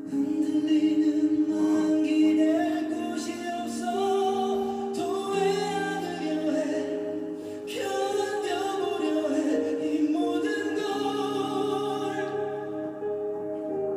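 Background music with singing voices holding long, slowly changing notes.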